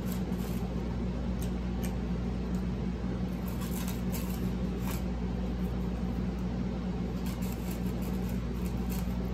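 Scattered small clicks and crinkles of eating and of a paper napkin and paper plate being handled, in two clusters, the first about halfway through and the second near the end. A steady low hum runs underneath.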